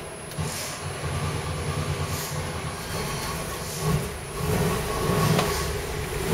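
1956 Chrysler Hemi V8 with custom EFI running at idle on an engine dyno, a steady low rumble heard through the control-room glass. Its note swells briefly a couple of times in the second half.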